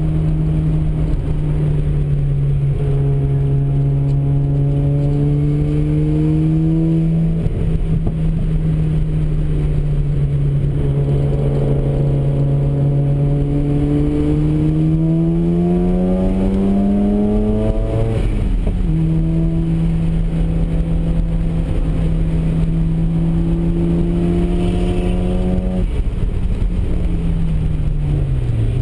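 Mazda RX-7's twin-rotor rotary engine heard from inside the cabin while lapping a race track. The engine note holds steady and then climbs under acceleration until a gear change about 18 seconds in, where the pitch drops sharply. It falls away near the end as the car slows, then jumps up again at the very end, over a steady rush of road and wind noise.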